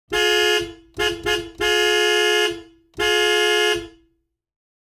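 Steam locomotive whistle blowing five blasts: a short one, two very quick ones, then two long ones. Each blast is a steady chord of several tones.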